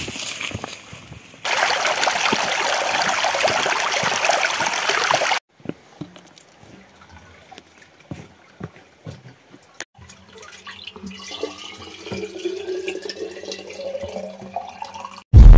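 Loud running water for about four seconds, cut off abruptly, then scattered faint drips and knocks. Near the end, water running from a pipe into a bottle, its tone rising steadily as the bottle fills.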